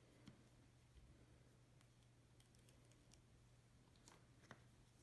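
Near silence with a faint steady hum, broken by a few soft clicks of snow peas being handled, strung and set down on a wooden cutting board.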